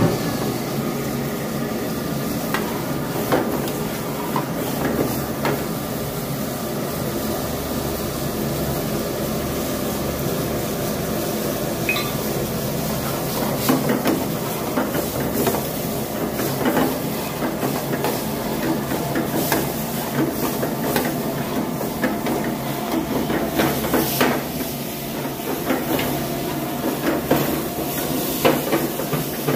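Chicken fry cooking in a wide pan over a high gas flame: a steady sizzle and hiss of steam, with a steel ladle knocking and scraping against the pan now and then.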